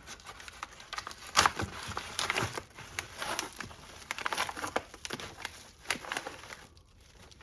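Plastic wrapping crinkling and rustling as it is handled, in a run of irregular sharp crackles that dies away about six and a half seconds in.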